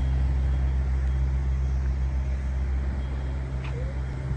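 Steady low hum of an engine running, with a brief short high sound near the end.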